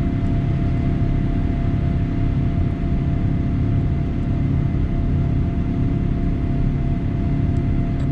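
Cabin noise of a Boeing 787 climbing out at takeoff thrust, heard beside its Rolls-Royce Trent 1000 turbofan: a steady low rumble with a constant whine.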